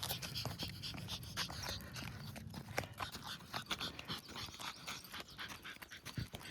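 Chihuahua panting in short, quickly repeated breaths, with scattered clicks and steps mixed in.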